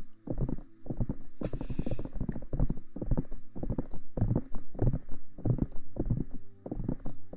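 Aloe vera gel being rubbed over a binaural microphone's ear in quick, wet rhythmic strokes, about three a second. A brief hiss sounds about one and a half seconds in.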